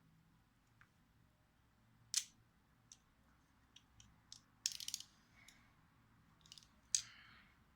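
Plastic Lego pieces clicking and rattling as the Lego fidget spinner is handled: a few sharp clicks, with a quick rattling run of clicks about halfway through.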